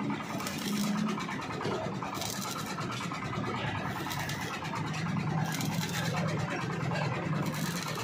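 Stick welding arc crackling and sputtering against steel, with brighter spells of sizzle several times, over a steady low hum.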